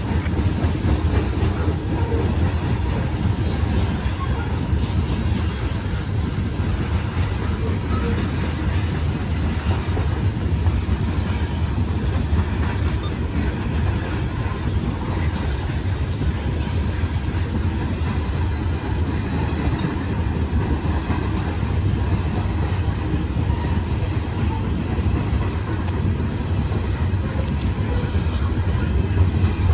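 Freight train rolling past: a steady rumble of the cars on the rails.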